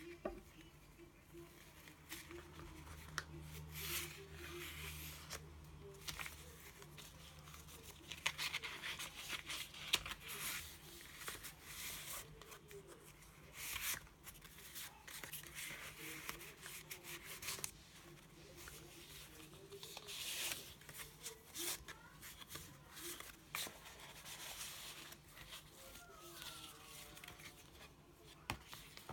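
Stiff scrapbook paper and card rustling and crinkling in irregular bursts, with a few sharp clicks, as the pages of a handmade paper mini album are handled.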